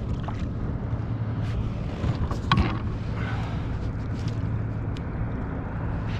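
Water and wind noise around a kayak on open water, with a steady low hum underneath and a few short sharp sounds, the loudest about two and a half seconds in.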